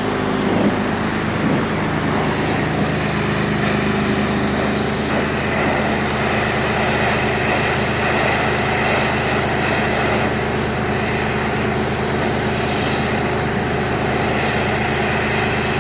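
Pressure washer's engine running steadily under load, with the hiss of the water spray over it.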